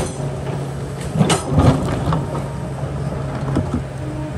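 Kobelco excavator's diesel engine running steadily, with a sharp clank at the start and a cluster of knocks and scrapes about a second and a half in, as the bucket works the rock.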